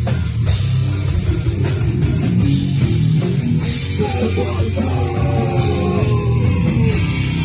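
Heavy metal/hardcore band playing loud: distorted electric guitars over a drum kit.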